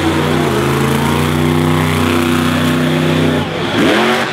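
Monster truck engine running steadily at a low, even pitch. About three and a half seconds in it changes abruptly to hard revving, its pitch sweeping up and down.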